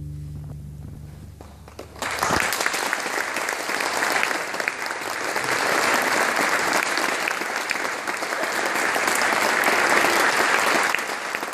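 The last low chord of a double bass ensemble fades away, then about two seconds in the audience breaks into steady applause.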